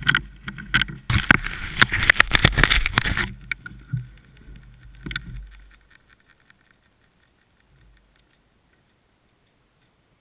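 Handling noise from a handlebar-mounted GoPro being turned: loud rustling and knocking for about three seconds, over a low hum that dies away about six seconds in, then near silence.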